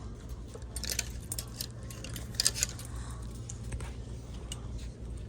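Clothes hangers clicking and clinking against a metal rack as bathing suits are pushed along it, over a steady low store hum.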